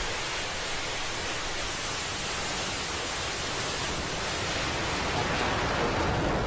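Falcon 9 first stage's nine Merlin engines at liftoff: a steady rush of rocket noise that grows a little louder, with a deeper crackling rumble building from about five seconds in.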